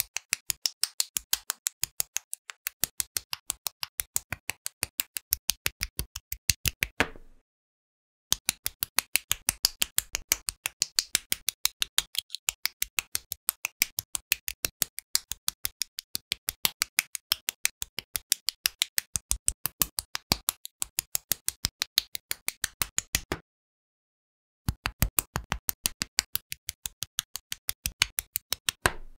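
Rapid, evenly spaced sharp clicks, about five a second. They break off twice for about a second.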